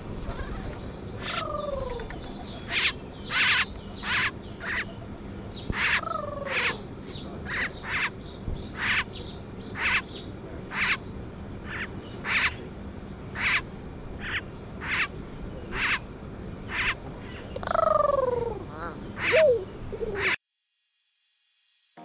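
A flock of birds, glossy starlings among them, calling close by: a steady run of short, sharp, high notes about one or two a second, with a few falling whistles mixed in. The calls cut off suddenly near the end.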